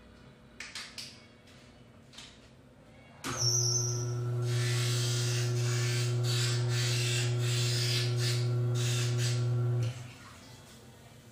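An optical lens edger runs for about six and a half seconds, grinding a spectacle lens to shape. It starts suddenly about three seconds in with a brief high tone, a steady low motor hum and a fluctuating grinding hiss, and stops abruptly near the end. A few light handling clicks come before it.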